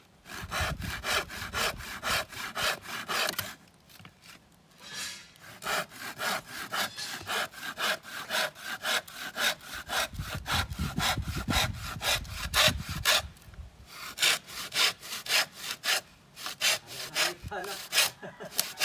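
Hand saw cutting through a wooden board in quick, even back-and-forth strokes. It stops briefly about four seconds in and twice more for a moment later on.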